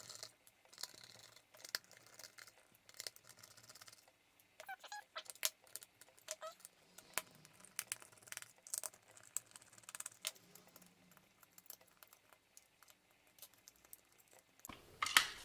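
Scattered light clicks and small rattles from a plastic pistol-grip RC transmitter being dismantled, its handle screws being taken out with a small screwdriver.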